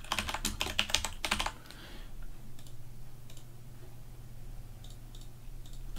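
Typing on a computer keyboard: a quick run of keystrokes in the first second and a half, then a few scattered taps. A steady low hum sits underneath.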